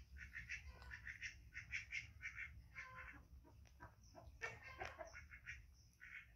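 Faint, rapid chirping calls from an animal, several a second in short runs, with a few soft clicks in the middle.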